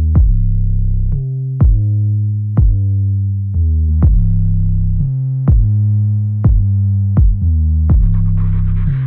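Background electronic music: a deep, sustained synth bass under a drum-machine beat that hits about once a second.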